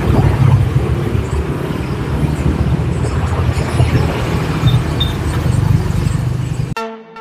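Loud, steady low rumble of motor-vehicle noise, cutting off suddenly near the end as music starts.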